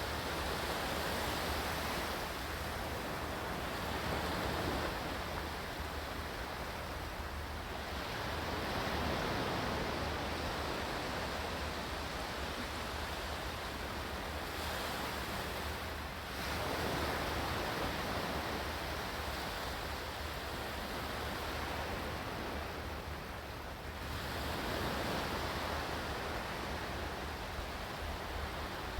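Ocean surf: waves breaking and washing in, a steady rush of water that swells and fades every several seconds.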